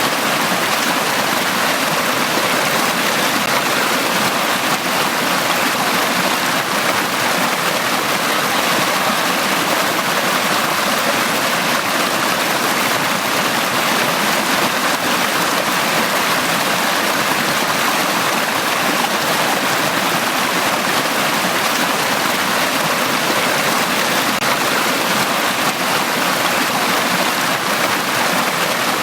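Water of a valley stream flowing over rocks, a steady, even rushing that does not change.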